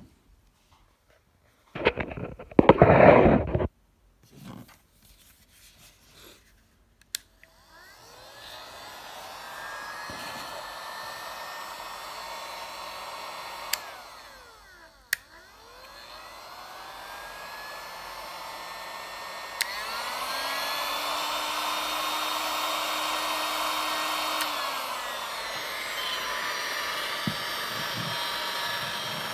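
DeWalt heat gun with a digital display running, its blower starting about seven seconds in with a steady rushing sound; it dips and picks back up around the middle, then runs louder with a low hum from about twenty seconds and eases down slightly near the end. A brief, loud burst of noise about two seconds in.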